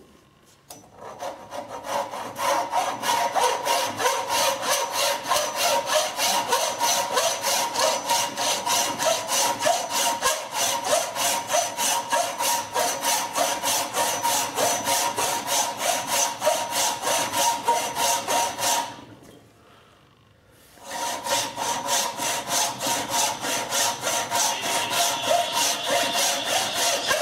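Chinese frame saw cutting by hand into the end of a wooden workpiece held in a vise, sawing a tenon. It makes steady back-and-forth strokes, stops for about two seconds about two-thirds of the way through, then starts again.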